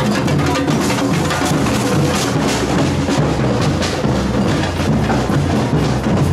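Samba batucada drum ensemble playing a dense, driving rhythm: deep bass drums pulsing under rapid snare and small hand-drum strokes.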